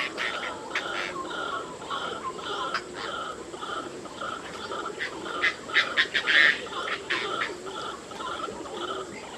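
Oriental darter calling: a short note repeated evenly about twice a second, with a burst of rapid clicks about five to seven seconds in.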